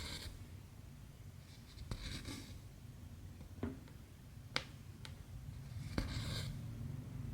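Cotton embroidery thread being pulled through cross-stitch fabric in short swishes, with several sharp light clicks of the needle between them, over a steady low hum.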